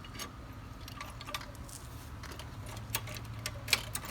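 A jack being worked to raise the front of a riding mower: a string of irregular sharp metallic clicks and ticks that come closer together in the second half.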